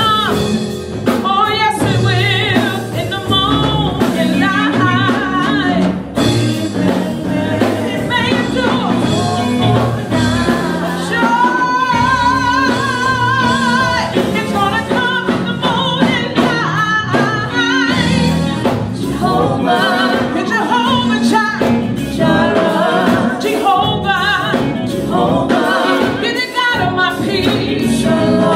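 Live gospel music: a group of singers in harmony over a band with drum kit and electric guitar, one voice holding a long note with wide vibrato about twelve seconds in.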